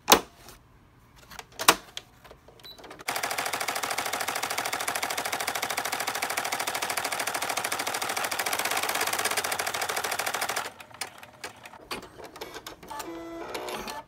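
Embroidery machine sewing an appliqué satin-stitch border: a fast, even run of needle strokes, sped up, that starts about three seconds in and stops at about eleven seconds. A sharp click right at the start as the hoop goes back onto the machine.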